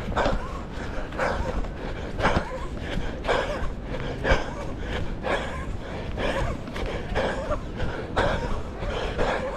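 A runner breathing hard in rhythm, with a loud breath about once a second. Under it is a steady low rumble of wind on the microphone.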